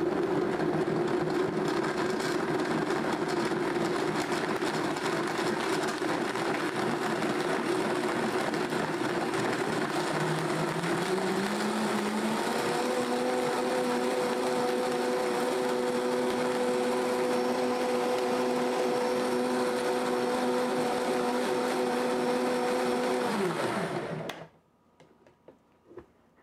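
High-speed blender puréeing soaked dates, water and sliced strawberries into a smooth syrup. Its motor runs steadily, climbs to a higher pitch about ten to twelve seconds in, then holds there until it is switched off near the end and spins down. A few light clicks follow as the lid is taken off.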